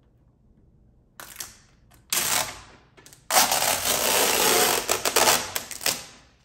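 Self-adhesive headlight tint film being peeled back off the headlight lens: a short rip about a second in, another just after two seconds, then a longer crackling peel lasting about three seconds.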